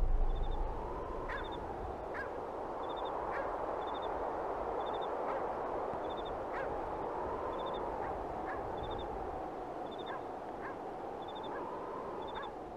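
Muffled footsteps and rustling of people walking through long grass, with faint irregular clicks and a small high chirp repeating roughly once a second.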